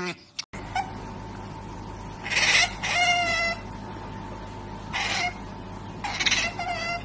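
Otter calls: short, high-pitched squeaks and squeals in two bursts, the first about two to three and a half seconds in and the second about five to seven seconds in. Each call ends on a falling note, over a steady low background hum.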